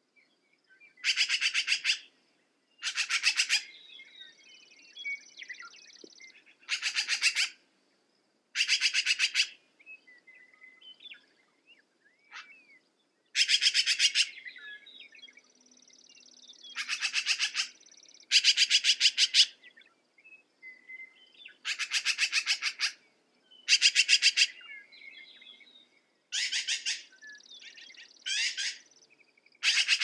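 Black-billed magpie chattering: about a dozen harsh, rattling bursts of rapid notes, each under a second long, repeated every two seconds or so. Fainter bird chirps sound between the bursts.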